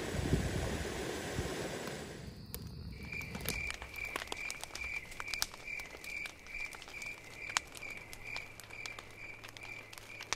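Wind noise on the microphone for the first two seconds or so. Then a wood campfire crackles and pops in a metal fire ring, while a cricket chirps steadily, about two or three chirps a second.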